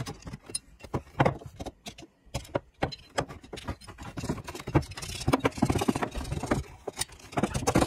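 Cast-iron Bell & Gossett 100 series pump body being handled on a countertop: a string of knocks and clicks, with scraping from about four and a half seconds in.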